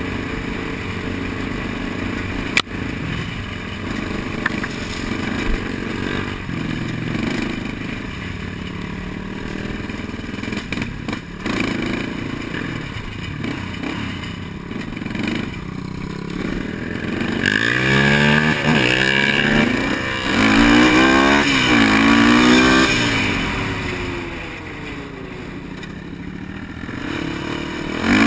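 Honda sport quad's single-cylinder four-stroke engine running along a trail, with a sharp knock a few seconds in. After about halfway the throttle is blipped up and down in several quick revs, then eases off before picking up again near the end.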